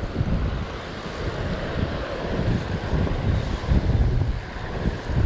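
Wind buffeting the microphone: a gusty, uneven rumble that rises and falls several times.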